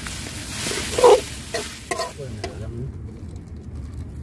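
Chicken gizzards and livers frying in chili paste in a metal wok, sizzling while a metal ladle stirs and scrapes them. The sizzle cuts off abruptly about two-thirds of the way through.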